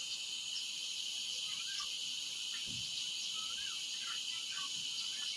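Steady high-pitched chorus of crickets and other night insects, with faint short chirping calls now and then.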